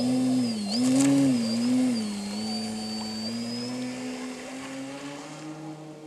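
Radio-controlled model seaplane's motor and propeller, throttled up suddenly at the start as it taxis on its floats across the water. The pitched whine wavers up and down a few times over the first two seconds, then holds and slowly rises while growing fainter.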